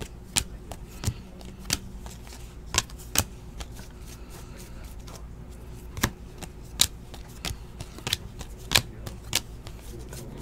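Basketball trading cards being flipped through by hand: a dozen or so sharp card snaps at irregular intervals, with a pause of about two seconds midway.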